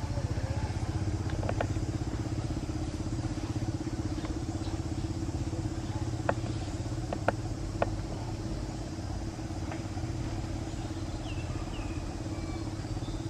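A motor running steadily with a low, even hum, with a few sharp clicks about six to eight seconds in.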